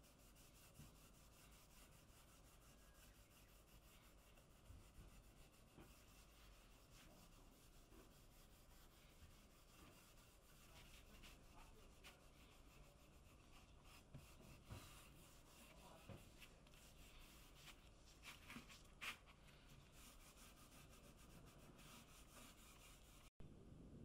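Faint rubbing of a wax-loaded cloth pad over a pine board, barely above room tone, with a few soft scratches and taps in the second half.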